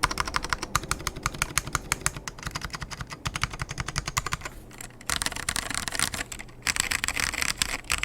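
Typing on a custom mechanical keyboard with salmon Alps switches, cleaned and with lubed springs, in a polycarbonate bottom case. Quick separate keystrokes give way after a short lull to faster, almost continuous typing.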